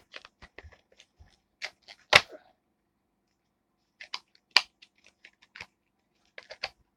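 Plastic blister packaging of a USB flash drive being cracked and torn open by hand: a run of sharp crackles and snaps, the loudest about two seconds in, with more after a pause.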